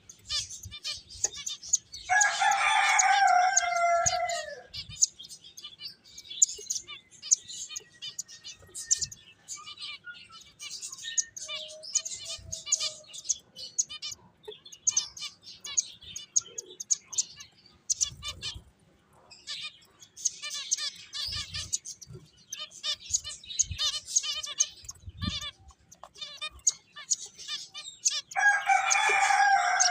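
Finches chirping in a constant, busy stream of short high calls. Twice, about two seconds in and again near the end, a rooster crows: a long call of about two and a half seconds that falls away at its end, the loudest sound here.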